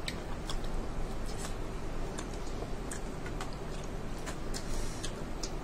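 Chewing and lip-smacking: irregular soft clicks and smacks of a mouth eating a cheese-sauced corn dog, over a steady low background noise.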